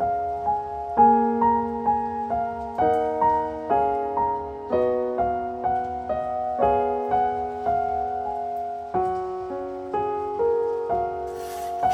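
Background music: a gentle solo piano piece playing slow, sustained chords and melody notes. A brief hiss near the end.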